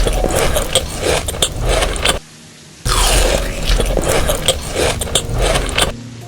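Crunchy dessert being bitten and chewed close to the microphone: loud crunching and crackling in two stretches of about three seconds each, broken about two seconds in by a short pause in which soft background music is heard.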